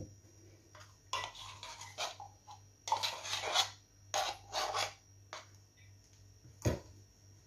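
Short scraping and rubbing strokes of a kitchen utensil against a container as more condensed milk is added to the melted chocolate, in several separate strokes, with one dull knock near the end.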